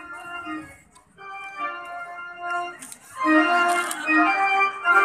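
Background music played on an organ-like keyboard, in slow held notes. It drops away briefly about a second in and comes back louder about three seconds in.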